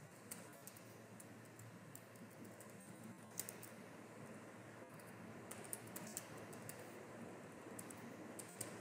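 Faint computer keyboard typing: irregular keystroke clicks over a steady background hiss.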